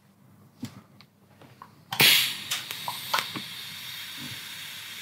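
A few small handling clicks, then about two seconds in a TIG welding arc strikes with a sudden crackle and holds as a steady hiss for about three seconds while a joint in a stainless steel exhaust pipe is tack-welded.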